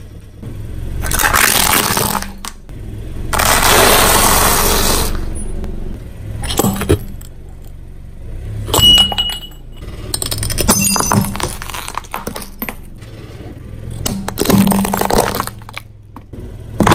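A car tyre rolling over and crushing hard plastic toy cars, with two long loud crunching bursts, then running over a mug that breaks with sharp cracks and the clink and clatter of shattering pieces.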